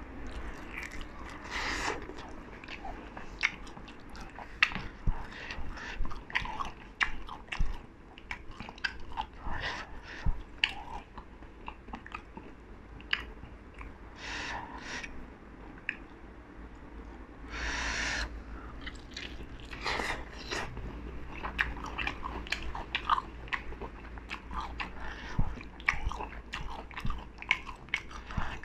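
Close-up eating sounds: biting and chewing sauce-coated fried chicken drumsticks, with many short wet clicks and smacks throughout. A few longer hiss-like noises stand out, the loudest about 18 seconds in.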